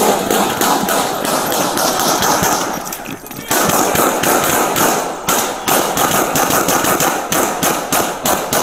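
Police pistol fire at close range: many handgun shots in rapid succession, including from the body-camera wearer's own pistol, with a brief lull about three seconds in before the firing resumes.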